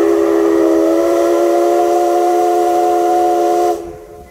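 Steam whistle of JNR C56 class locomotive No. 160 giving its departure whistle: one long, loud blast of several tones sounding together, cutting off shortly before the end.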